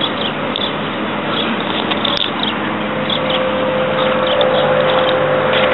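A motor vehicle's steady hum over outdoor noise. The hum comes in about halfway through and grows slightly louder.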